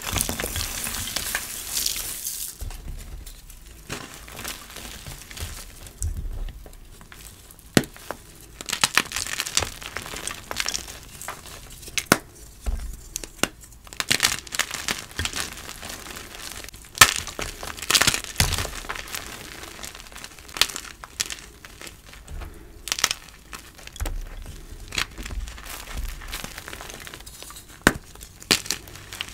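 Blocks of gym chalk (magnesium carbonate), fresh and reformed, crunching and crumbling as hands squeeze and break them apart. A dense crumble comes first, then irregular crunches with sharp snaps now and then as blocks crack.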